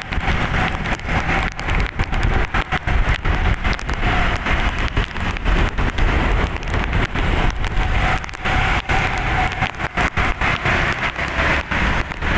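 Steady, rough road-vehicle noise with a constant crackle running through it. No horn tune stands out.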